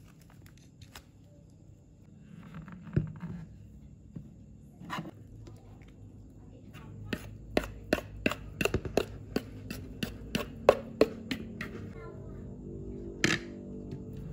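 A fork clinking against a glass bowl while thick corndog batter is stirred, a quick run of taps about four a second, with a few duller knocks before it. Background music comes in near the end.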